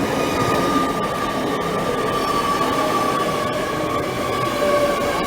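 Train moving at a station with a steady rumble and a high-pitched squeal that holds one note, sagging slightly in pitch, and scattered sharp clicks.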